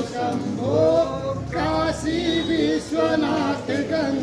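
A group of voices singing a devotional chant, with long held notes that bend up and down.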